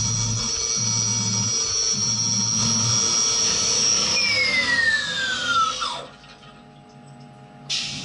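Small vertical CNC milling machine cutting aluminium with mist coolant, its spindle giving a steady high whine. About four seconds in the spindle winds down with a falling pitch and stops about six seconds in. A short hiss of air follows near the end.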